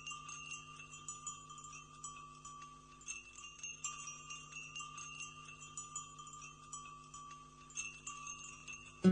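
Soft ambient sound bed: scattered high chime-like tinkles, many small strikes each ringing briefly, over a steady low drone. A loud plucked chord comes in at the very end as music starts.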